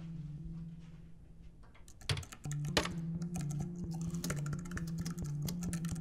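Typing on a computer keyboard: a fast, dense run of key clicks that starts about two seconds in, over low held notes of background music.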